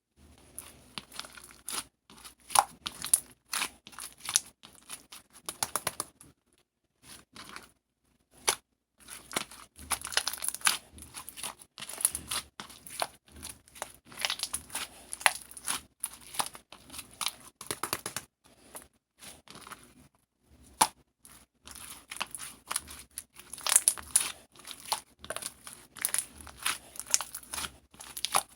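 Irregular, dense crinkling and tearing noises, like material being crumpled and ripped by hand, with a few short pauses along the way.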